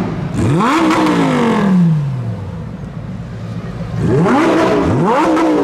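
A supercar engine revving hard: one rev about half a second in whose pitch falls away over the next two seconds, then a quick double rev near the end.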